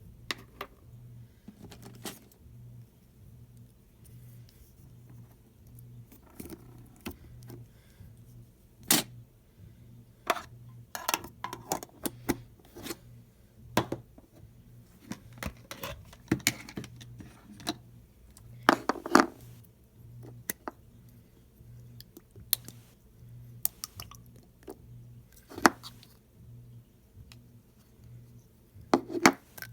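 Slime being squeezed and poked by hand, giving irregular small pops, clicks and crackles, with a few louder squelches now and then over a faint steady low hum.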